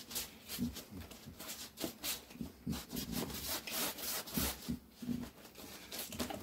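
Paper towel loaded with acrylic paint being rubbed and scrubbed over watercolor paper, a run of quick, irregular rubbing strokes.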